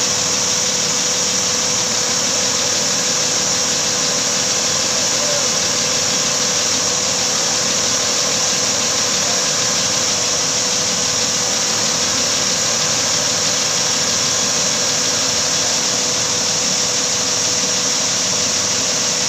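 Engine of a 50-tonne truck-mounted crane running steadily while it holds a load on its boom, with a constant whine over the engine noise.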